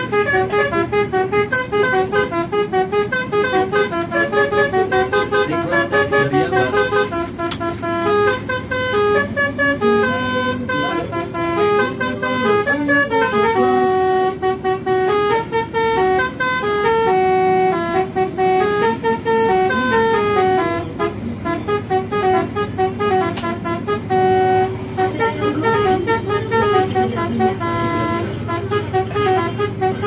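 A bus's telolet horn, a set of electrically switched multi-tone air horns, playing a long tune note by note. The notes step abruptly from pitch to pitch, with the bus's engine running underneath.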